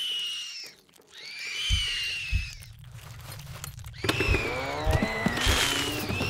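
Sound-designed screeches of giant spiders: shrill calls that each fall in pitch, one about two seconds in and several overlapping from about four seconds on. Heavy low thuds sound beneath them.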